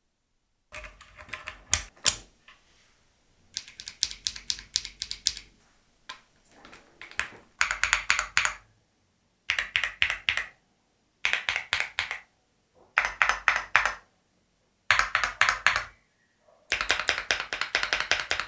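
Keychron Q1 Max mechanical keyboard with Jupiter Banana switches being typed on, in short bursts of rapid keystrokes with brief pauses between them. A few separate, louder clicks come near the start.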